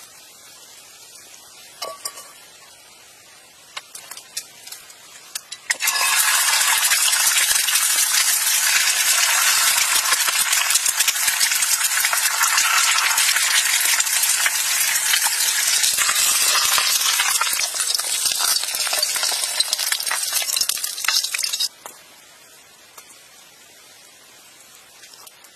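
Duck eggs frying in oil in a black skillet over a wood fire: a loud, dense sizzle with fine crackling that starts suddenly about six seconds in and cuts off abruptly a few seconds before the end. Before it come a few light clicks and taps over a quiet background.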